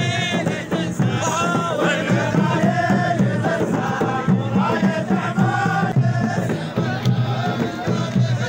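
A group of men chanting a traditional Omani folk song together, several voices rising and falling in unison.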